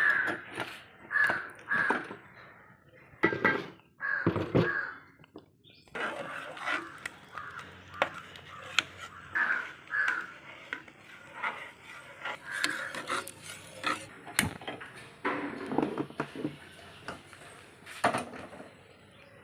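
Crows cawing repeatedly, short harsh calls often in pairs, with a few sharp clicks in between.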